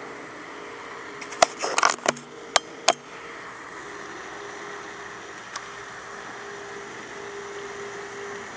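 A landed peacock bass flopping on grass: a cluster of sharp slaps and clicks between about one and three seconds in, over a faint steady hum.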